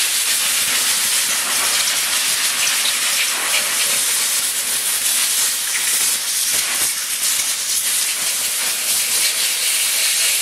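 Compressed-air blow gun hissing steadily as it blasts a motorcycle engine block, drying off the solvent wash and blowing out the last grit.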